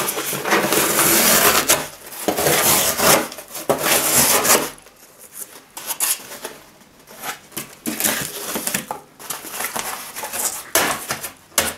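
Extrema Ratio Task C fixed-blade knife slicing through corrugated cardboard. It rasps loudly in three long strokes over the first five seconds, then gives way to quieter scraping, rustling and small knocks.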